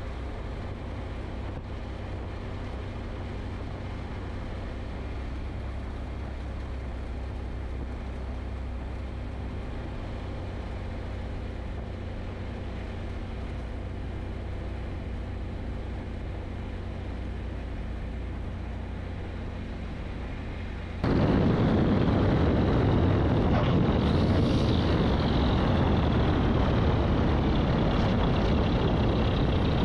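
Kitfox light aircraft's engine and propeller running steadily, heard from inside the cockpit through approach and landing. About 21 seconds in, it cuts abruptly to a louder, rougher engine and propeller sound with rushing air, as heard from a camera on the wing while the plane taxis.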